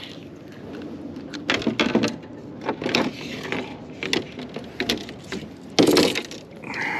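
Knocks and clatter of fishing rods and gear being handled on a boat deck. A string of sharp knocks, the loudest about six seconds in.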